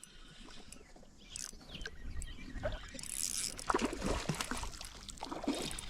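A hooked trout splashing at the water's surface as it is reeled in on light line, getting louder and more frequent from about three seconds in.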